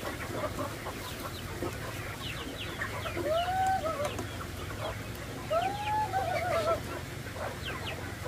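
A flock of chickens clucking and chirping as they crowd in to feed. Two longer arching calls stand out, about three and five and a half seconds in, each trailing off into a run of shorter notes.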